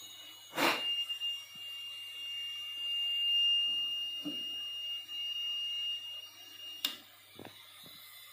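Buzzer of a home-built MQ-2 gas and smoke detector sounding one steady high-pitched tone for about six seconds: its alarm that gas or smoke has been sensed. A click comes as it starts and another as it cuts off.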